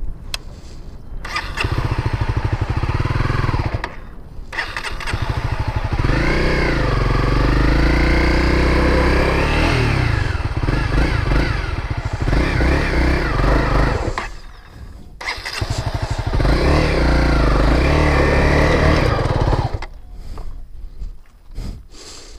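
Honda CRF250L single-cylinder four-stroke engine revving up and down in long bursts as the rider tries to power the bike out of deep sand where it is stuck. The engine sound drops away twice, about four seconds in and again about fourteen seconds in.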